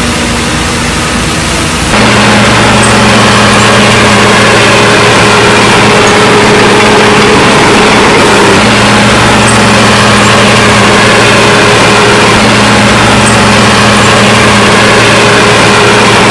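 Heavy construction machine's engine running steadily and loudly, with a sudden step up in loudness about two seconds in, after which it holds an even note.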